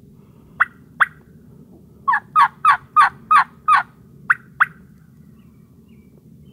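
Turkey yelping: two short sharp notes, then a run of about seven yelps, then two more short notes, loud and close.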